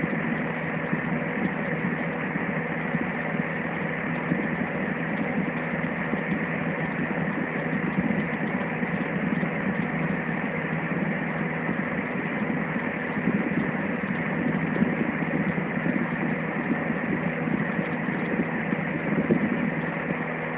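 Small electric fan heater running: a steady rush of blown air over a low motor hum.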